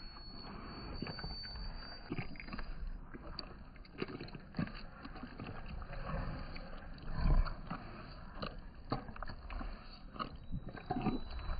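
Staffordshire bull terrier licking raw food out of a lick mat: irregular wet licks, smacks and tongue clicks against the mat, with a heavier thump about seven seconds in.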